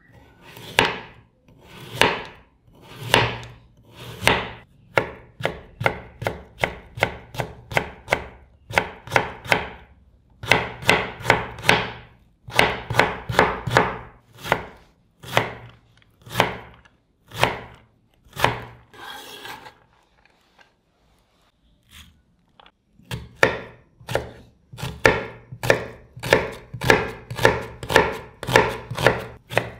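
Chef's knife cutting raw carrot into thin matchsticks on a wooden cutting board: crisp crunching cuts, each ending in a tap of the blade on the board, slow single cuts at first, then quicker runs of about three a second. After a short pause about two-thirds through, the cutting resumes on an onion.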